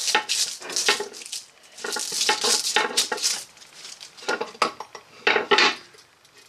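Hands clattering and clinking small metal parts and the brass telescope clock housing on a lathe's wooden board, with a paper tissue rustling, in three bouts of clatter that die away about six seconds in.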